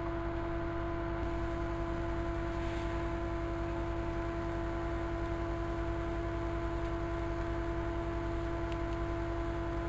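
Steady electrical hum: one constant mid-pitched tone with fainter overtones over a low buzz and light hiss, unchanging throughout.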